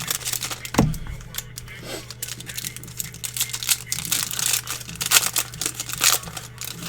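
Baseball card pack wrappers being crinkled and torn open by hand, an irregular crackling, with a dull thump about a second in.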